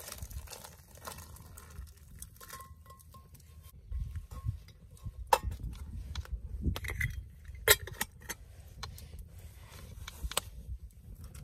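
Scattered clinks and taps of a steel pot and wooden chopsticks against a paper cup as udon noodles are poured into broth and stirred. The sharpest clicks come about five and a half and eight seconds in, over a steady low rumble.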